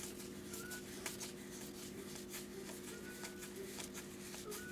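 Baseball trading cards sliding and flicking against each other as a stack is thumbed through one card at a time: faint, irregular soft ticks over a steady low hum.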